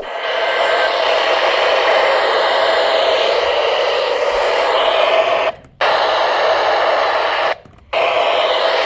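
Radio static hiss from a weather radio receiver, steady and loud, cutting out briefly twice, about five and a half and seven and a half seconds in.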